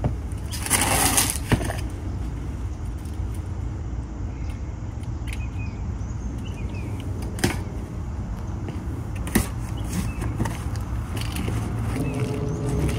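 Cardboard shipping box being opened and handled by hand: a brief rip about a second in, then a few sharp taps and knocks of cardboard, over a steady low background rumble. Near the end the plastic-wrapped rubber mat starts rustling as it is pulled out of the box.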